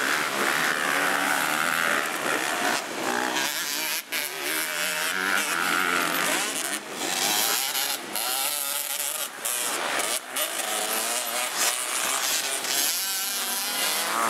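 Motocross bike engines revving, the pitch rising and falling again and again as riders work the throttle through the dirt-track corners, with a few short breaks.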